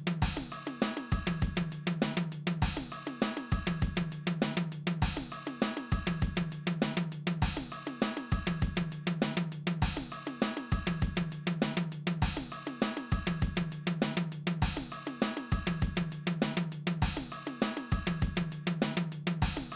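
Background music with a steady drum-kit beat and a bass line, repeating a short pattern every two seconds or so.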